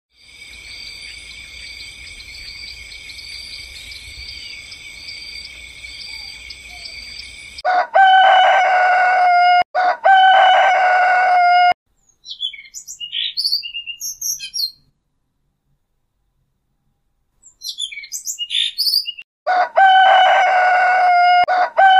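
A rooster crowing, a morning wake-up sound effect: two loud held crows about 8 seconds in and more starting near the end, with short bird chirps in between. It opens on a steady high-pitched ringing tone.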